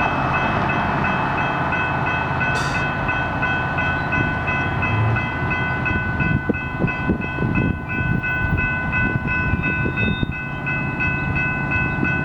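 Grade-crossing bells ringing in a steady repeating pattern over the low rumble of a train rolling through the crossing, with wheel clatter around the middle.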